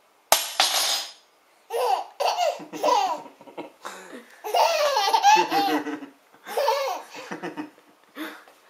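An infant boy of a few months laughing in several bouts, with a sharp clatter just before the first laugh.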